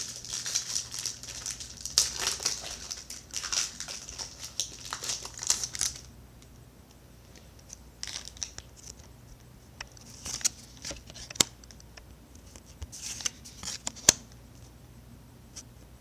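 A Yu-Gi-Oh booster pack's foil wrapper crinkling and tearing open for about six seconds. After that come quieter rustles and a few sharp clicks as the cards are handled.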